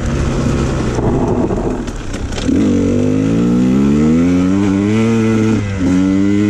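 2019 KTM 150 XC-W two-stroke dirt bike engine running while being ridden. The revs climb steadily for about three seconds, drop briefly about five and a half seconds in, then pick up again.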